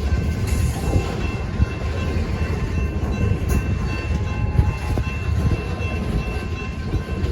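Norfolk Southern train rolling past on the rails, with a steady low rumble from the passing cars.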